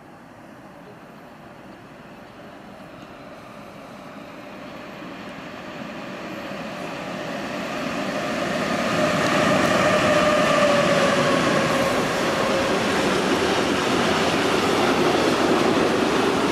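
Electric freight train with intermodal container wagons approaching and passing. The sound builds steadily for about nine seconds, then a tone drops in pitch as the locomotive goes by. A steady rumble of the container wagons rolling past follows.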